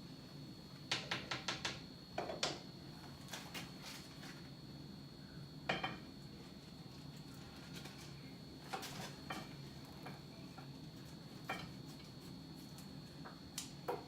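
Utensil clinking and tapping against a cooking pot and dishes: a quick run of about five taps about a second in, then scattered single knocks and short clusters, over a steady low hum.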